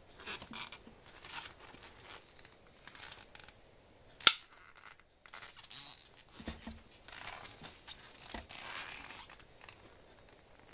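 Gloved hands handling and turning a Miya Epoch 700 electric fishing reel: intermittent rustling and rubbing of the gloves against the reel. There is one sharp click about four seconds in, the loudest sound.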